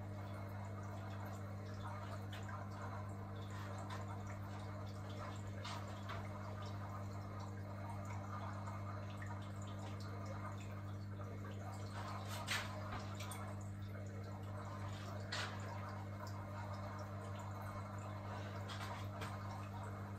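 Faint water drips in an aquarium over a steady low hum, with a few sharper drips about six, twelve and fifteen seconds in.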